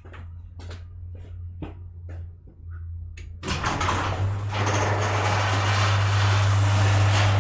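Light scratching and clicks of cleaning on the computer's fans. About three and a half seconds in, a loud rushing of air with a steady electric-motor hum starts suddenly and keeps running: a motorised air blower or vacuum cleaning dust from the fans.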